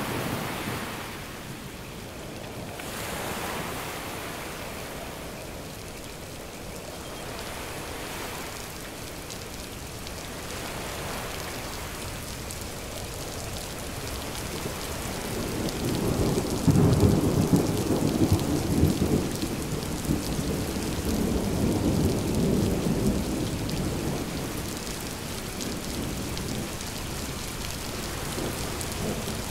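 Steady rain with a rolling rumble of thunder that builds about halfway through, stays loud for several seconds, then slowly dies away.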